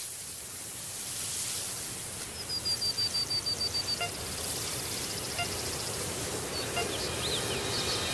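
Outdoor ambience with a steady hiss; a small bird sings a quick high trill of about ten notes a second for a second and a half, then gives a few faint chirps.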